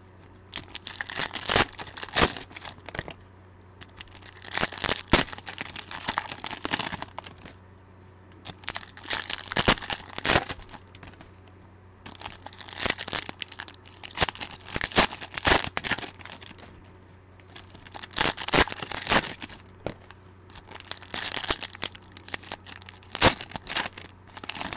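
Plastic wrappers of Panini Legacy football card packs being torn open and crinkled by hand, in about six bursts of a couple of seconds each with short pauses between.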